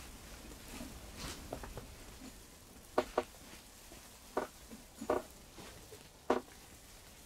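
Quiet room tone with a handful of light taps and clicks, mostly in the second half, about one a second.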